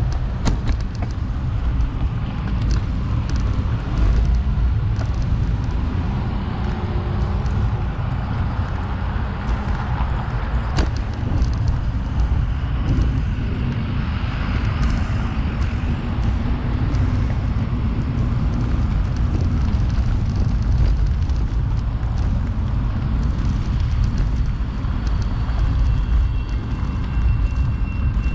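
Wind rumbling on the microphone of a moving bicycle, with road and traffic noise.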